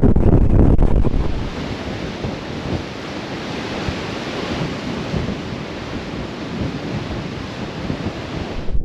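Rough storm surf washing and breaking as a steady hiss, with wind rumbling on the microphone for about the first second and again at the very end.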